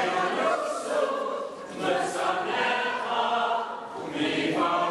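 A synagogue congregation singing together, many voices in unison.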